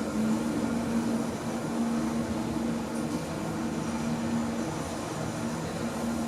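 Metro station lift car travelling down, a steady machine hum with a low drone from the drive.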